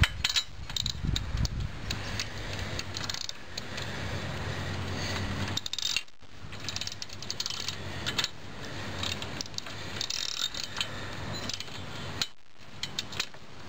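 Socket ratchet clicking in short runs as a spark plug is turned in a small engine's cylinder head, with light metal clinks of the tools.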